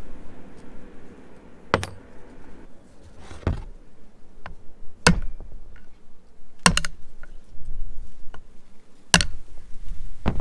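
Sharp metal-on-metal knocks, about six strikes spaced a second or two apart, one of them doubled, with a brief ring: a hammer and flat screwdriver knocking the C-clips (snap rings) off the bearing caps of a Toyota truck driveshaft's U-joint.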